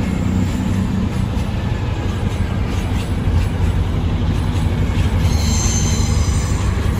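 Class 220 Voyager diesel multiple unit running through the platform, its underfloor diesel engines making a steady low rumble with a few light clicks from the track. A high-pitched squeal from the wheels starts about five seconds in.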